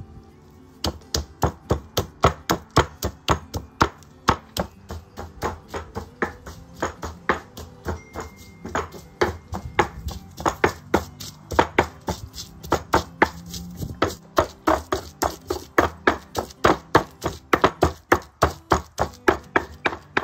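Stone pestle pounding garlic cloves in a volcanic-stone molcajete, crushing them into ground pepper and spices: sharp strikes in a steady rhythm of about three a second, starting about a second in.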